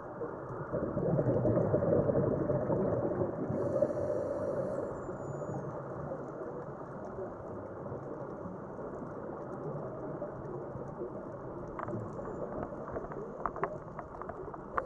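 Muffled underwater rushing picked up through a diving camera's housing, swelling louder for a few seconds near the start and then settling into a steady low wash, with a few faint sharp clicks near the end.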